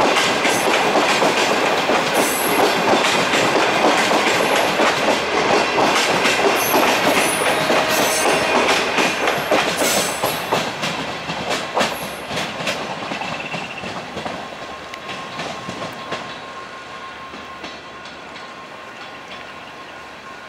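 Passenger train coaches rolling past, their wheels clattering over rail joints with a few brief high squeals. The sound fades steadily as the last coach moves away down the track.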